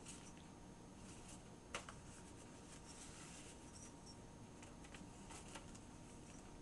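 Faint rustling and light tapping of paper as a handmade journal's pages and tucked-in tags are handled, with one sharper tap nearly two seconds in.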